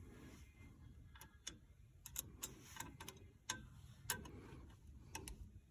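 Faint, irregular metallic clicks and taps of drum-brake springs and shoe hardware being worked into place by hand on a 1989 Dodge Dakota's rear brake, about ten in all, bunched around the middle.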